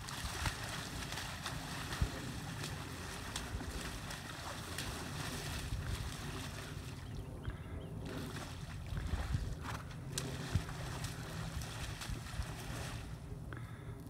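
Wind rumbling and buffeting on the microphone in an open field, steady throughout, with scattered faint clicks and ticks.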